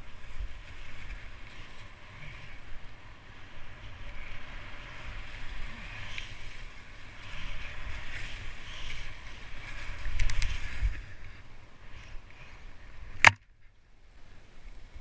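Skis sliding downhill over snow: a steady hiss of the skis with wind rumbling on the microphone, swelling and easing with the turns. About thirteen seconds in there is a single sharp knock, then a moment of quiet.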